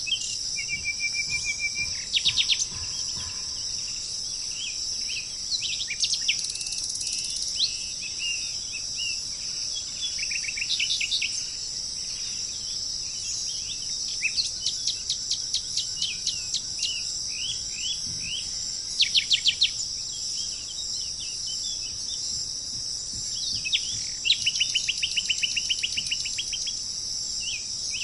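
Songbirds chirping and trilling, with several rapid runs of repeated notes, over a steady high-pitched chorus of insects such as crickets.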